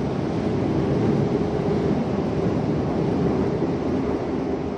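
Toei Asakusa Line 5300 series subway car running, heard from inside the passenger cabin: a steady rumble of wheels and traction motors, a little louder from about a second in.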